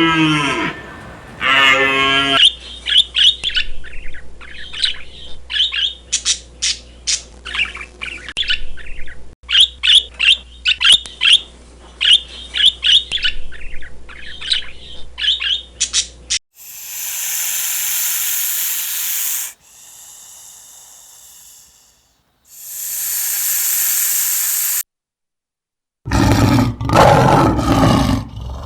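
A sequence of animal sounds: a cow's moo fades out, then about 14 seconds of rapid, high bird chirping. Two spans of hiss-like noise follow, then a loud, deep animal call begins near the end.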